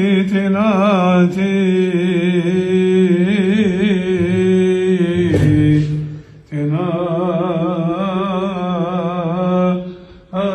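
A man chanting a Coptic liturgical deacon's response, the melody drawn out in long, ornamented runs on single syllables. The chant breaks off briefly about six seconds in and again near the end.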